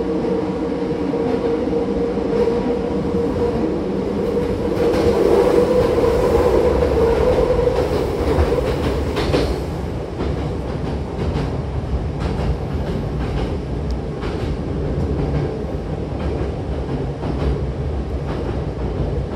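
Hankyu Imazu Line electric train running between stations, heard from inside the carriage by the doors. A steady tone sits over the running noise and fades out about halfway through, after which the wheels click now and then over the rail joints.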